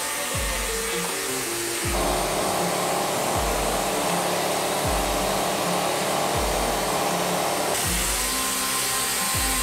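Vapor blasting cabinet's nozzle hissing steadily as a carburetor part is blasted, with the hiss getting brighter near the end. Background music with a regular deep kick-drum beat plays over it.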